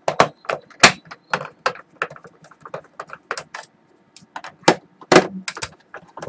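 Screwdriver driving the cover screws into a plastic UPS case: an irregular run of sharp metal clicks and taps, loudest about a second in and again around five seconds in.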